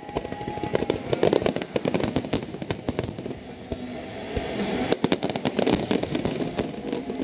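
Aerial fireworks going off in quick succession: a dense run of sharp crackles and bangs, with music playing underneath.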